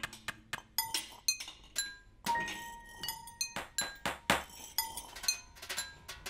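A teaspoon tapped against porcelain cups, saucers and a metal tray, struck as improvised percussion: many quick clinks in a loose, irregular rhythm, some leaving a short ringing tone.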